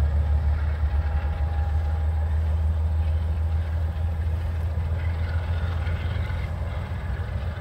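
Freight train passing at speed: a steady, deep rumble of diesel locomotives in distributed power, with faint steady tones above it, mixed with empty grain hopper cars rolling on the rails.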